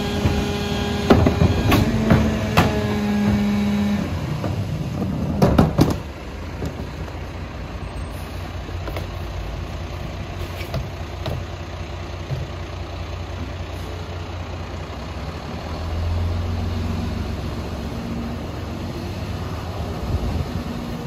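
Rear-loader garbage truck (Kenworth with a Leach 2R-III body) at work. For the first few seconds the engine runs up with a steady hydraulic whine while a cart is tipped into the hopper, with several loud clunks of the cart banging. Then the diesel idles steadily, running up briefly again near the end as the packer is cycled.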